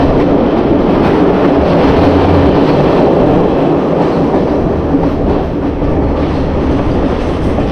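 Passenger train running at speed, heard from the open doorway of a carriage: a steady noise of wheels on rails and the rattling carriage, with a steady low hum underneath.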